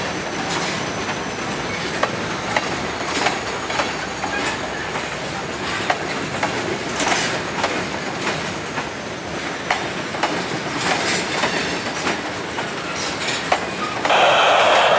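Freight cars (tank cars, gondolas and covered hoppers) rolling slowly past. The steel wheels click and clank irregularly over the rail joints, over a steady rumble, with a faint high squeal from the wheels.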